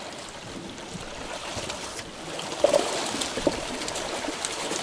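Small waves lapping and splashing against a rocky lakeshore, with wind, and a few short sharp splashes or knocks a little past the middle.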